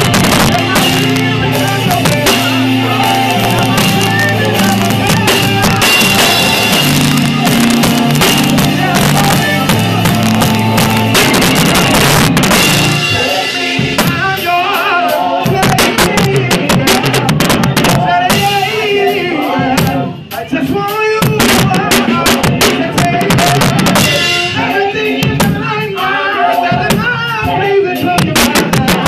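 Live band music: an electronic keyboard played quickly along with a drum kit. Heavy low notes fill the first half and drop out about thirteen seconds in, leaving a lighter texture of keyboard and drum hits, with a brief dip around twenty seconds.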